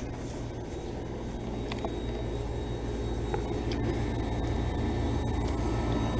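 Outdoor heat pump unit running with a steady low hum that grows gradually louder as the unit comes out of its defrost cycle.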